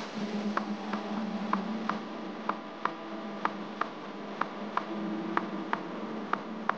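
Quiet background music: a steady low hum with soft clicks in an even short-long rhythm, about three a second.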